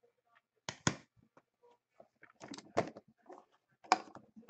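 Handling noise from an aluminium carry case and a plastic card holder: a few sharp clicks and knocks, the loudest about a second in, near three seconds and near four seconds, as the case's lid is swung open and a card is put inside, with light rustling between.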